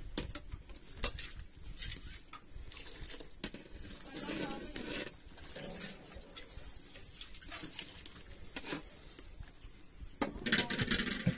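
Metal ladle stirring and knocking in a large metal cooking pot of steaming rice, giving scattered sharp clicks and taps.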